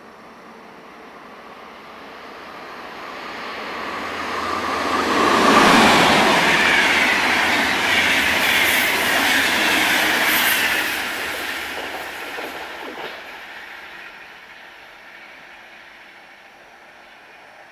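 Deutsche Bahn Intercity train, an electric locomotive hauling coaches, passing close by at speed. The wheel and rail noise swells to a peak about five or six seconds in, holds while the coaches go by, then fades away.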